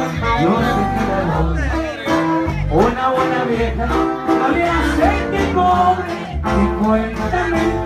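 Live norteño band playing loudly: button accordion and bajo sexto over a bass line and a steady beat, with a man singing lead into a microphone.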